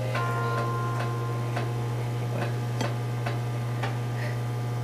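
Steady low hum with faint light ticks repeating about twice a second.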